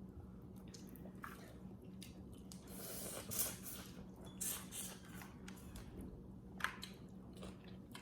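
Close-miked chewing and wet mouth sounds of someone eating, with scattered small clicks and smacks.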